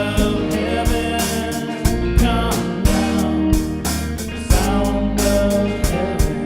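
Instrumental break of a worship song: a band with drums keeping a steady beat, sustained bass and guitar.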